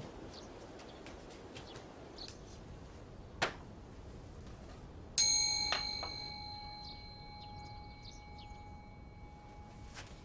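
A small metal bell is struck about halfway through and rings with a clear tone that fades slowly over several seconds, with a lighter knock just after the strike. Faint bird chirps sound in the background.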